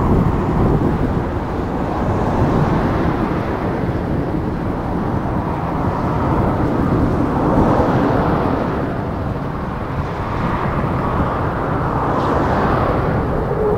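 Ilyushin Il-76's four turbofan engines running loudly as the jet rolls out along the runway after landing. The noise is a steady roar that swells about halfway through and again near the end.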